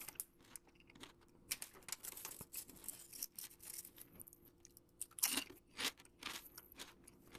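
Chewing a Lay's potato chip: a run of irregular crisp crunches, with a louder cluster of crunches a little past five seconds.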